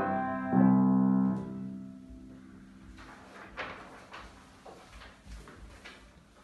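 Upright piano and domra sound a final chord about half a second in, held and dying away over about two seconds. Then sheet-music pages rustle, with a few light knocks, as the music is turned on the piano's stand.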